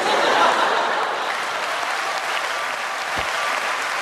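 Studio audience applauding, swelling up at the start and then holding steady. A single dull thump sounds about three seconds in.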